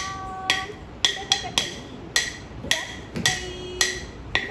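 Sharp wooden time-keeping strikes with a short ring, about two a second in an uneven rhythm: a tapping stick beaten on a wooden block (thattukazhi) keeping the beat for Bharatanatyam footwork practice.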